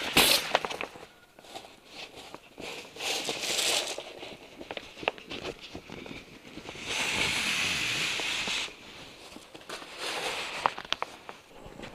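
Camper awning fabric rustling and crinkling as it is worked along the awning rails, with scattered clicks. A louder scraping hiss lasts nearly two seconds in the middle.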